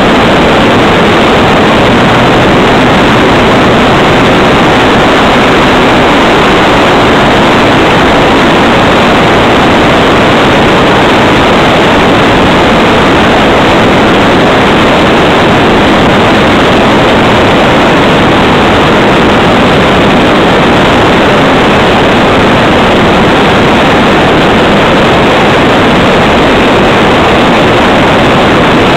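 Electric motor and propeller of an RC model Cessna 182 in flight, mixed with wind noise, picked up by a camera mounted on the plane's nose: a loud, steady noise with no clear pitch.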